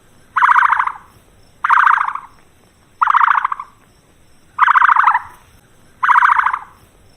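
A bird's short buzzy call repeated five times, about one and a half seconds apart, each lasting about half a second.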